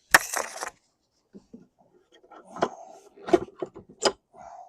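Tools and metal parts being worked on a Honda Shadow's front wheel: a short loud scrape or rattle, then a few sharp knocks and clinks.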